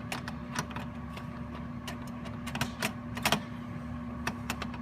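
Scattered light clicks and taps of a CPU heatsink being handled and set down over the processor socket, as it is positioned to line up with its mounting holes. A steady low hum runs underneath.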